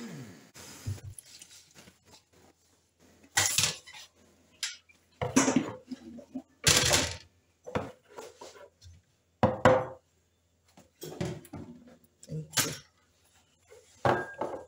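Countertop blender's motor cutting off and spinning down at the start, followed by a string of sharp clunks and knocks, about one every second or two. The last knock comes as the plastic blender jar is gripped and lifted off its base.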